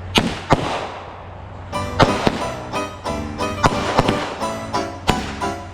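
Two sharp consumer firework bangs in quick succession at the start. After about a second and a half, music with a steady beat comes in and carries on.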